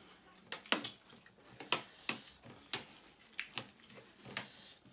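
Spoons and forks clicking and scraping on ceramic plates as several people eat: a string of irregular sharp clicks, about three a second.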